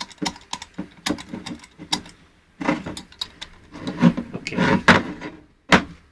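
Combination wheels of a Master Lock 5401D key safe being rolled by hand to scramble the code: irregular runs of quick clicks with some rubbing, and one sharp click near the end.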